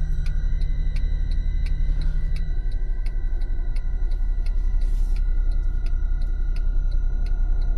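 Steady engine and road rumble inside a car's cabin, with the turn signal clicking evenly about three times a second. The low rumble shifts slightly about two and a half seconds in.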